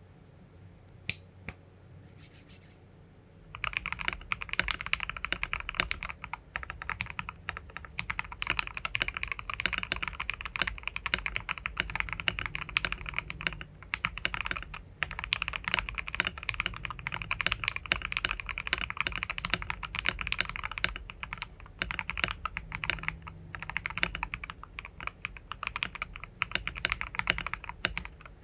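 Fantech Maxfit 67 mechanical keyboard with Gateron Yellow linear switches being typed on, with a thocky sound: a few single clicks at first, then fast, continuous typing from about three and a half seconds in, with a few brief pauses.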